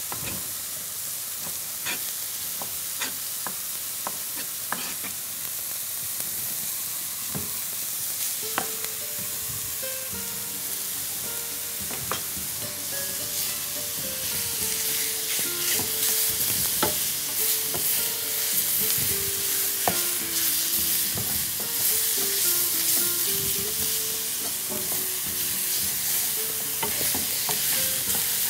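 Chicken strips frying in a pan over high heat: a steady sizzle with scattered knocks and scrapes of a wooden spoon stirring them. Quiet background music with a simple melody comes in about eight seconds in.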